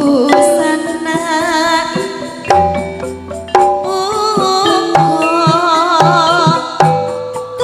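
Javanese gamelan music: bronze metallophones (saron and demung) and bonang kettle gongs struck in a steady ringing pattern, with a sinden singing a wavering melody over it in the first second and again from about four seconds in.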